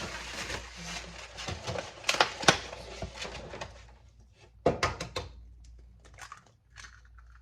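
Kitchen handling sounds while eggs are being fetched: a few sharp clicks and knocks, loudest about two and a half seconds in and again near five seconds.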